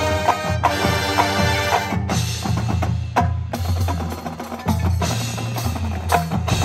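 High school marching band playing its field show: a held full-band chord for about the first two seconds, then a percussion-led passage of mallet and drum strikes over low bass notes, with a brief break a little past three seconds.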